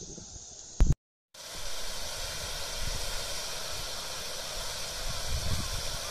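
Pond fountain jets spraying and falling back into the water: a steady hiss of splashing water. About a second in there is a sharp click and a short gap in the sound.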